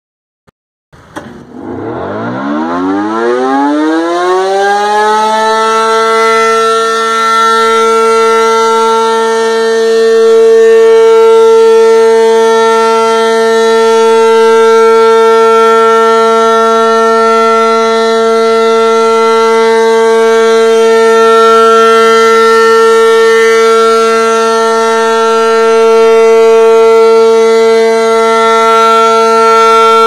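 ACA Allertor 125 rotating electromechanical warning siren winding up: its tone rises steeply for about four seconds, then holds a steady, loud wail that swells and fades gently as the rotating head turns. It runs "undershot", settling below its full rated pitch.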